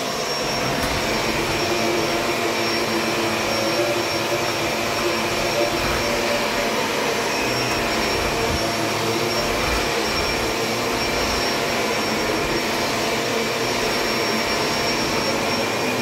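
Shark NV600 Lift-Away upright vacuum cleaner running steadily while being pushed over a doormat: an even rush of air with a steady motor tone.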